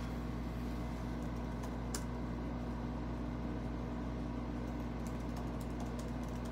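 Steady low hum of room machinery or electrical equipment, with a few faint light clicks about two seconds in and again near the end.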